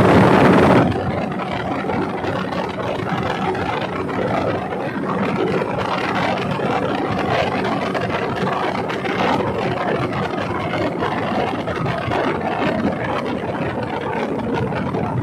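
Engine of a small wooden river boat running steadily while underway, mixed with a steady rush of water and wind; louder for about the first second.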